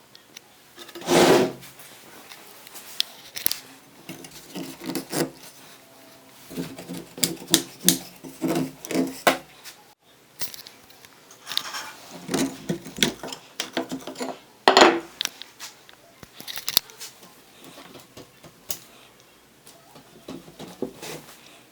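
Irregular knocks, clicks and rubbing from handling and working on a loose chair, with two louder knocks about a second in and near the middle.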